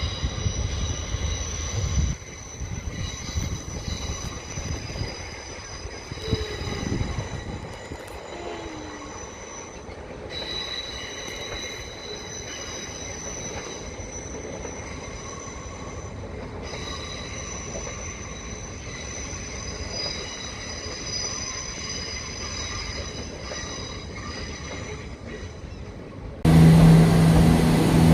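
Train wheels squealing on the rails as a train moves through, with steady high-pitched squeal tones that drop out and come back. About two seconds before the end it cuts suddenly to a much louder, deep, steady engine sound.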